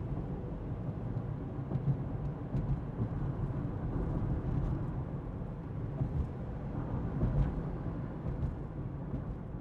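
Car interior while driving: a steady low rumble of engine and tyres on the road. Short faint clicks and knocks from the suspension come through it now and then.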